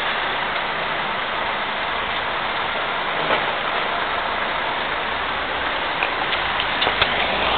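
Steady rushing background noise, with a few light clicks about six to seven seconds in.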